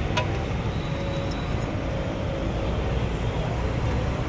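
Steady low rumble of street traffic, with a sharp click shortly after the start.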